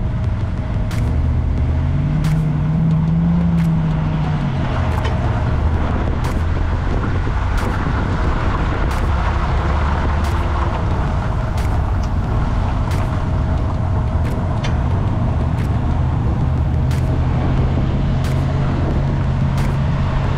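Semi truck's diesel engine under way, its pitch rising and falling early on as it goes through the gears, then holding steady. A light tick repeats a little more than once a second.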